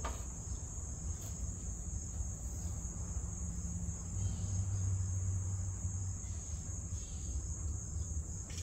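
Crickets trilling steadily in one continuous high-pitched band, over a low rumble that swells for a couple of seconds in the middle.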